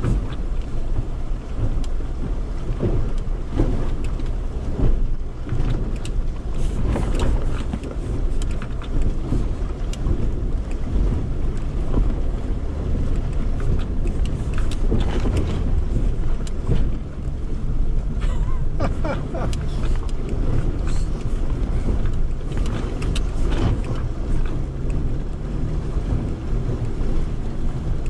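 An off-road vehicle's engine running steadily at low speed while it wades through a deep water crossing, with water sloshing and splashing and scattered knocks.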